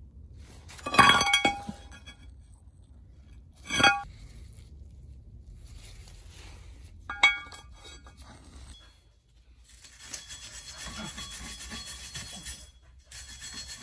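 Three ringing metallic clinks a few seconds apart as the worn brake disc and pad are handled. Near the end, a wire brush scrubs the rear wheel hub face, a steady scratchy scraping, cleaning it for the new disc to seat against.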